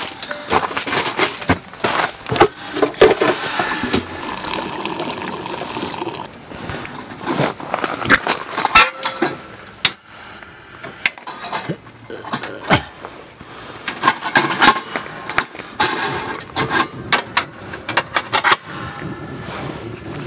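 Irregular clicks, clinks and knocks, with stretches of rustling, from hands handling a fan on the wire guard of a Paseco kerosene heater and working the heater's lever.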